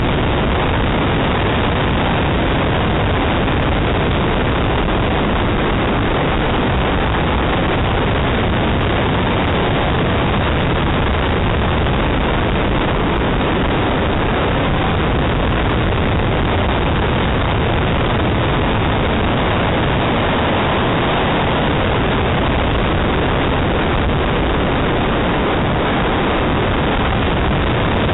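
Steady loud rush of wind noise on a roof-mounted camera's microphone as a Ford Escort RS2000 drives a slalom course, with no distinct engine note standing out.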